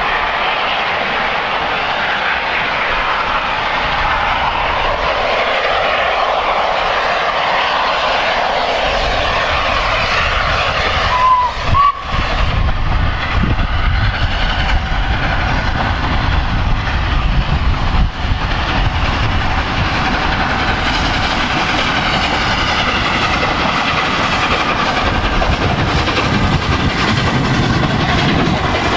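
Three-cylinder LNER A3 Pacific steam locomotive 'Flying Scotsman' working hard up a steep gradient at the head of a passenger train. Its exhaust grows louder and deeper from about nine seconds in as it draws near, with a brief whistle about eleven seconds in.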